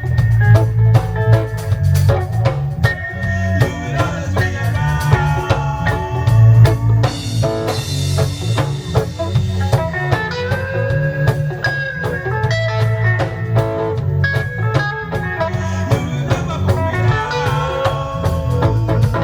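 Live reggae band playing a lovers rock tune: a heavy, pulsing bass line under drum kit and guitar.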